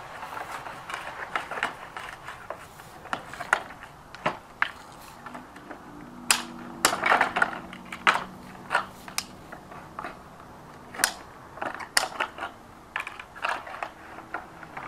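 Aviation snips cutting through vinyl siding: a run of irregular sharp snips and crackles of the plastic, several a second in places, with the rattle of the siding being handled.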